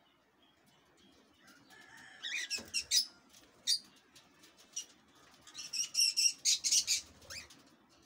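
A lutino cockatiel bathing in a shallow water tray, flapping its wings and splashing in two bursts, the first about two seconds in and a longer one around six seconds in, with a short chirp near the end.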